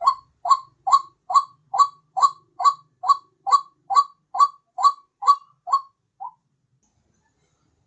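White-breasted waterhen (ruak-ruak) lure call: a steady series of short, rising calls, about two a second, which breaks off with a fainter last note and leaves a pause near the end.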